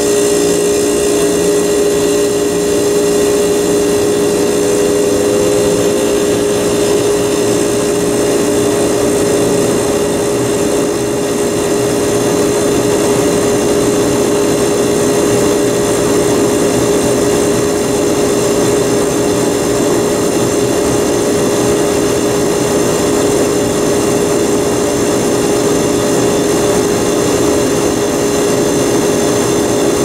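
1982 Carrier Siesta 5,000 BTU window air conditioner running, its Tecumseh reciprocating compressor and fan making a steady hum over a rush of air. The unit is loaded by a heater blowing hot air into its evaporator.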